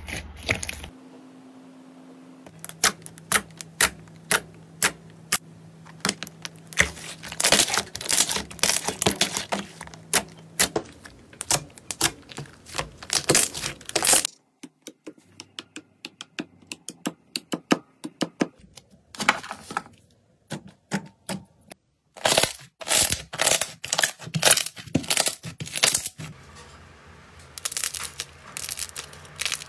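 Hands squeezing and kneading slime, giving runs of sharp crackling pops and clicks as trapped air bursts, in several separate takes with short quiet gaps between them.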